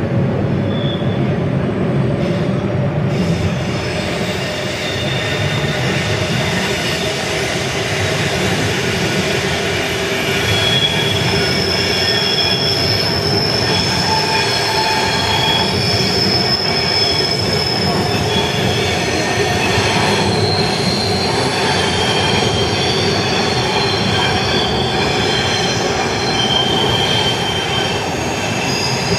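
SBB Re 460 electric locomotive and its double-deck coaches rumbling past at departure speed. From about ten seconds in, the wheels squeal on the rails in high, thin, drawn-out tones that come and go.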